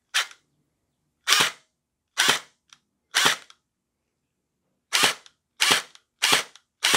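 Splatrball gel blaster's V3-style gearbox, rebuilt with all-metal gears and the stock spring, cycling on the bench: eight single shots, each a short sharp burst. The first four come about a second apart and the last four quicker, with no steady whine, so the new gears are working.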